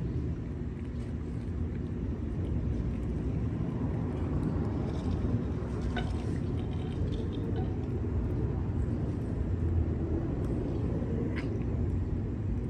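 Steady low rumble of city traffic, with a couple of faint clicks.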